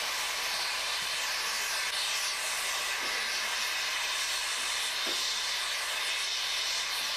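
Steady hiss of steam escaping from a standing Mallet tank steam locomotive.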